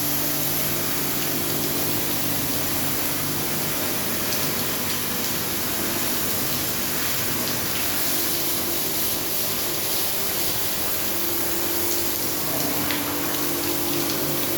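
Pressure washer spraying water on an air-conditioner outdoor unit: a steady hiss of spray over the pump motor's hum. The hum drops away for several seconds in the middle and comes back near the end.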